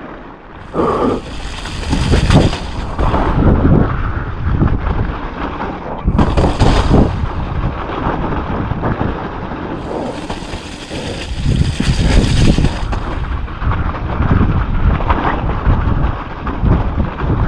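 Wind buffeting the microphone over the rattle and thuds of a mountain bike descending a rough, muddy trail, with spells of loud hiss about a second in, around six seconds and around ten seconds.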